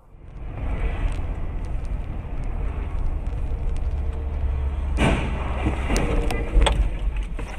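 Steady low rumble of road and engine noise inside a moving car. About five seconds in, a loud crash as two cars collide just ahead, followed over the next second or so by several sharp bangs and clatter.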